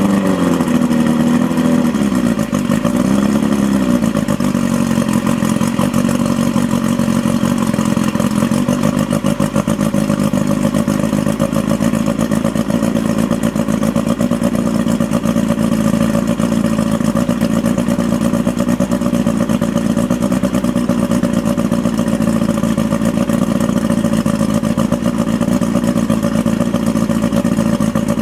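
1994 Mariner 40 hp two-stroke outboard motor running out of the water on a hose-fed flush attachment. Its revs rise and fall twice in the first few seconds, then it settles into a steady idle.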